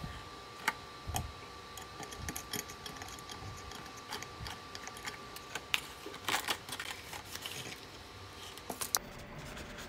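Scattered small clicks and rubbing of hands handling fishing line and small hardware at the load-cell end of a line-strength tester, with a quick flurry of clicks about six seconds in. A faint thin steady whine sits under it and fades out about seven seconds in.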